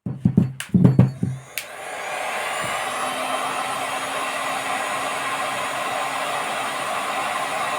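A few sharp knocks and clicks, then about a second and a half in a click as a small electric blower motor switches on and runs steadily with a whine.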